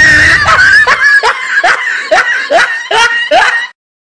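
Laughter dropped in after a joke: a run of short rising "ha" bursts, about two a second, that starts abruptly and cuts off suddenly near the end.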